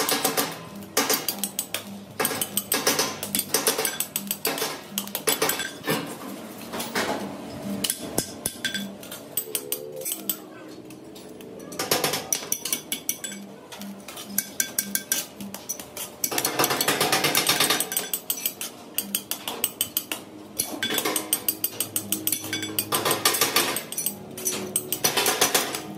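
Metal parts being struck and handled in a workshop: rapid, irregular metallic clanks and hammer blows that thin out briefly about ten seconds in, over background music.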